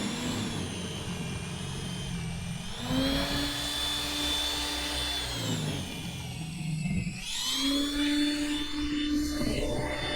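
A motor running with a whine that speeds up, holds, slows down, then speeds up again.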